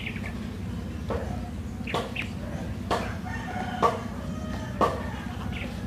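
A chicken clucking, short sharp calls about once a second, over a steady low hum.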